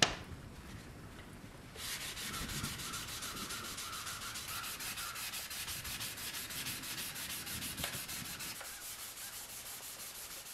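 Sandpaper rubbed by hand back and forth over the steel head of an old hammer, in quick, even strokes of about six a second that begin about two seconds in. A single sharp click comes right at the start.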